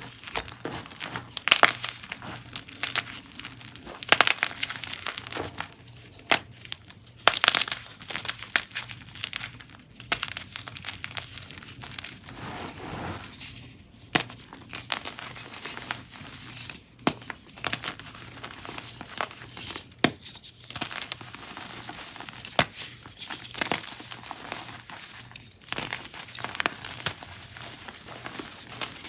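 Chunks and blocks of gym chalk being crushed and crumbled, giving soft crunches and sharp crackles. The crackling is dense for the first ten seconds or so, then thins to separate snaps.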